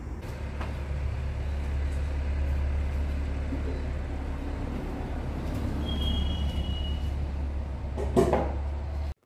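Steady low engine rumble, with a short clatter near the end.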